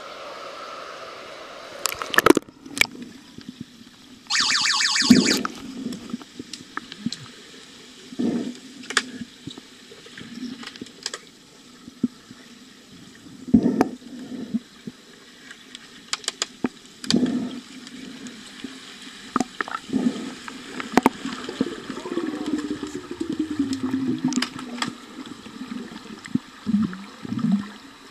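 Underwater hockey heard from just under the pool surface: a splash as the camera goes under about two seconds in, then muffled knocks, clunks and bubbling from players, fins, sticks and puck on the pool bottom. A brief rapid buzzing rattle comes about four seconds in.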